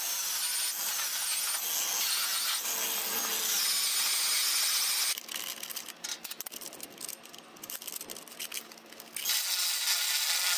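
Cordless angle grinder running as it cuts into an aluminum frame joint to open a gap for weld. It runs steadily, stops about five seconds in, leaving a few seconds of quieter scraping and clicking, then runs again about nine seconds in.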